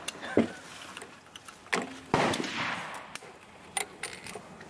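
Rifle shots on an outdoor range: a sharp report near the start, a fainter crack, then the loudest report about two seconds in, ringing on for most of a second, and a lighter crack near the end.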